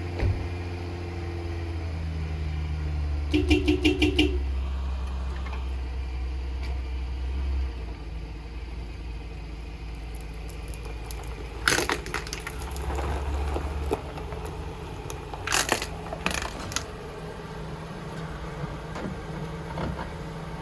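Car engine idling low, with a quick run of short beeps about three seconds in. Sharp cracks and crunches come near the middle and again a few seconds later as the car's tire rolls over and crushes a Notifier FST-951 plastic fire-alarm heat detector.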